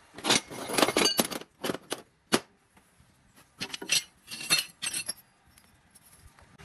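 Steel offcuts and bar stock clinking and clattering as they are sorted through by hand, in two spells of sharp metallic clinks with a short quiet gap between.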